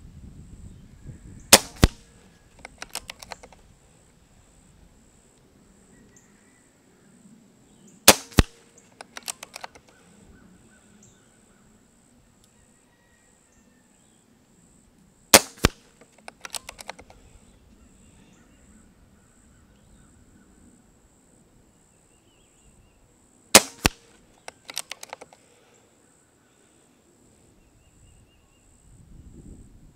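Gamo Urban .22 PCP air rifle firing four shots, about seven seconds apart. Each shot is a sharp crack followed closely by a second, fainter strike, and about a second later by a short run of clicks as the action is cycled and the next pellet loaded.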